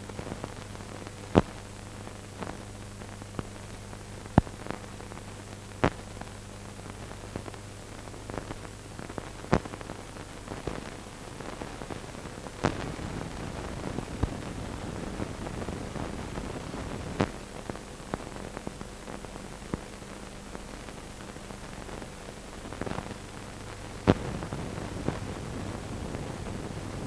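Steady hiss with a low mains hum and scattered sharp crackles at irregular intervals: the noise of an old film or tape soundtrack with no speech on it.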